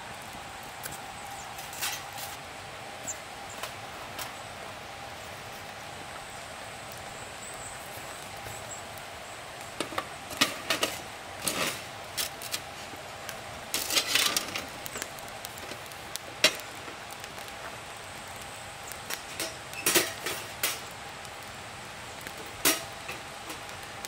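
Irregular light knocks and clinks of objects being handled, bunched in two clusters around the middle and later on, over a faint steady hum.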